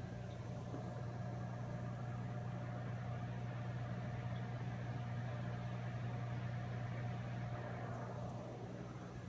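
Steady low hum of running aquarium equipment, even and unbroken throughout.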